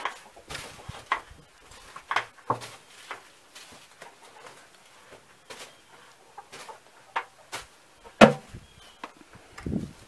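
Irregular knocks, scuffs and rustles as a plastic bucket of sawdust is handled and emptied onto the floor of a wooden chicken house, with one heavy thump about eight seconds in.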